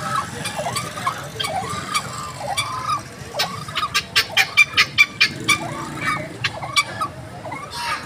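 Fowl calling: short rising-and-falling calls repeat, then a rapid run of about ten sharp notes grows louder over a couple of seconds midway, over low street noise.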